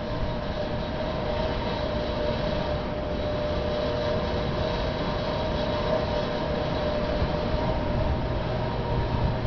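Steady city street noise: a constant mechanical drone with a low rumble beneath it, even in level throughout.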